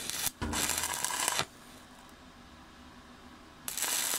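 Stick-welding (SMAW) arc crackling on steel plate in short bursts, broken and restruck: a brief break just after the start, a spell of about a second, a pause of about two seconds, then the arc struck again near the end. This on-off arcing is how a hole in the plate is filled bit by bit.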